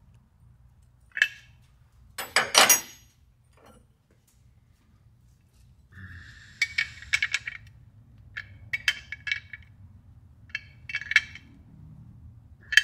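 Metal wrench clinking on the fittings of a billet power steering reservoir as they are snugged down: two sharp clinks in the first few seconds, then several short bursts of rapid clicking in the second half.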